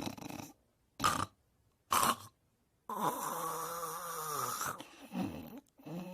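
Snoring: two short snorts about a second apart with silent gaps around them, then a longer, drawn-out snore with a wavering pitch about three seconds in, followed by more uneven snoring.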